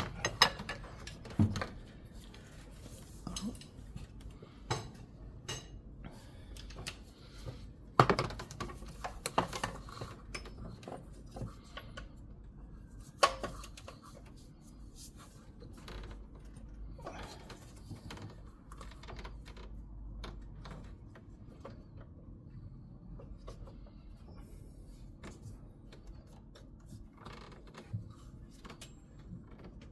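Metal hand tools clinking and knocking in an engine bay: a ratchet and socket worked against the belt tensioner to get the accessory belt back on. Scattered sharp knocks, the loudest about eight seconds in and again around thirteen seconds, growing sparser later on.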